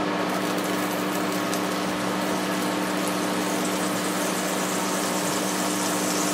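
A steady mechanical hum, like a kitchen fan, under the soft hiss of a pat of butter starting to melt and sizzle in a hot frying pan. The sizzle grows near the end as the butter begins to bubble.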